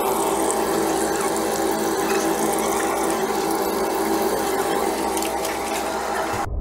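Oil sizzling and crackling steadily in a frying pan as breaded fish fillets fry, over a steady hum. It cuts off abruptly near the end.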